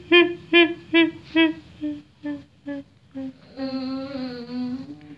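A voice humming in short repeated pulses, about two and a half a second, growing fainter, then one longer wavering hum near the end, made as a ghost's voice.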